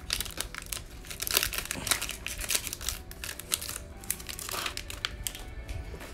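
Foil wrapper of a Panini Mosaic football card pack crinkling and tearing as it is peeled open by hand, a rapid run of crackles that thins out near the end as the cards come free.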